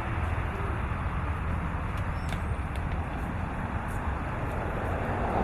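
Fire engine running steadily, a low hum under an even rushing noise.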